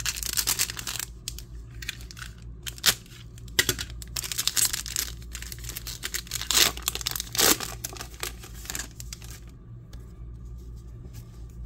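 Foil wrapper of a Topps trading card pack being torn open and crinkled in the hands, a run of irregular rips and rustles that dies down about nine seconds in.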